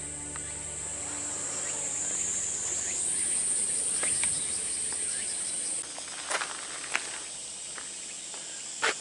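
Insects droning in the shrine trees, a steady high-pitched buzz that rises a little in pitch about three seconds in. A few short, sharp sounds cut through it in the last few seconds.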